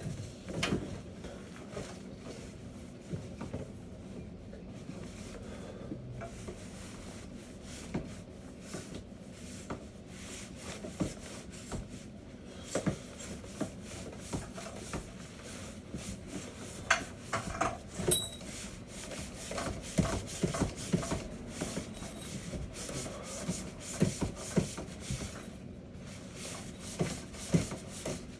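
Dryer vent cleaning brush scraping and rubbing along the inside of the vent duct, with irregular knocks and clicks as it is pushed through, over a steady background hum.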